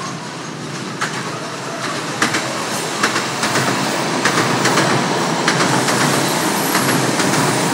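Electric commuter train running past close by on curving track, its wheels clacking irregularly over rail joints and points, the running noise growing louder as it nears.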